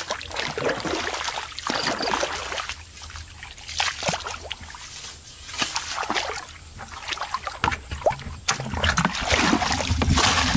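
Legs wading through shallow muddy water: irregular sloshing and splashing with each step, with grass brushing against the body.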